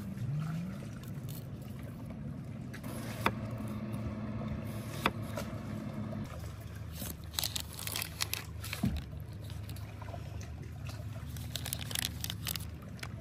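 Kitchen knife slicing a plum and then cheddar on a wooden cutting board, with sharp taps of the blade on the board about three and five seconds in and a scatter of clicks later, over a low steady hum.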